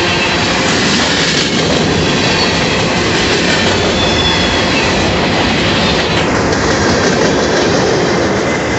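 Freight cars of a passing manifest train rolling by close at hand: a loud, steady rumble and rattle of steel wheels on rail, with a few faint high squeals from the wheels.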